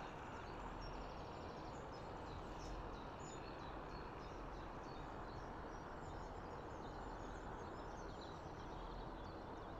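Steady outdoor background noise with a low rumble, and small birds chirping faintly throughout.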